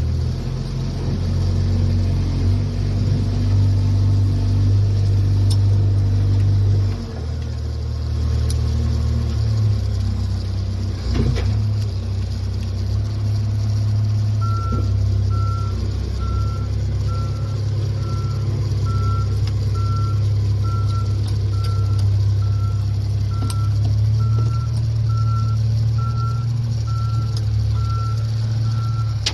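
Volvo 210 excavator's diesel engine running steadily, its note dropping and changing about seven seconds in. About halfway through, a high alarm starts beeping at an even pace, roughly one and a half beeps a second.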